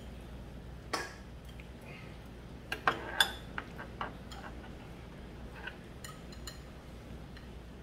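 Metal chopsticks clicking and clinking against plates and a serving pan: scattered sharp clicks, the loudest cluster about three seconds in, over a low steady hum.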